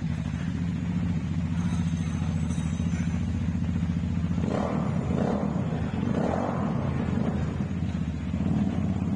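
Benelli Motobi 200 EFI's single-cylinder engine idling steadily.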